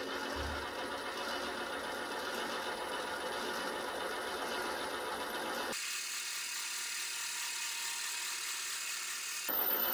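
Small metal lathe running steadily as the cutting tool is fed into the spinning workpiece to cut a shallow groove. About six seconds in, the low part of the sound drops away, leaving a thinner, higher hiss and whine.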